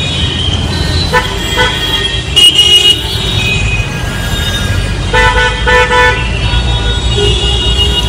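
Car horns honking in a traffic jam: short beeps from several horns at different pitches, including three quick beeps about five seconds in, over the steady low rumble of the traffic.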